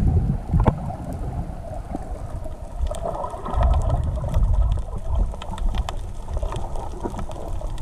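Muffled water noise picked up by a camera held underwater: an uneven low rumble with scattered clicks and crackles.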